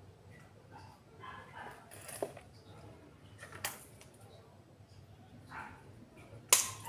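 Scissors snipping a fleshy succulent stem: one sharp click near the end, after a couple of lighter clicks as the stems are handled.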